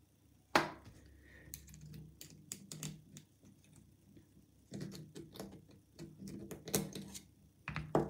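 Small metallic clicks and scrapes of brass levers being worked out of a gutted Squire Defiant lever padlock with a thin pick. There is one sharp click about half a second in, a few scattered ticks, then a busier run of clicks from about five seconds in, with a sharp one near the end.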